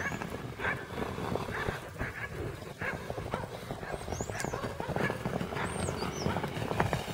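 Loose horses galloping across a dry dirt paddock: dull, uneven hoofbeats on the ground.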